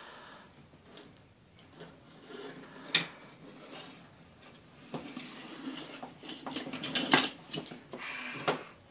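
Toy trains clattering and knocking against a wooden train table's track as a toddler handles them. There is a single sharp knock about three seconds in, then a run of clatter and clicks through the second half, loudest near the end.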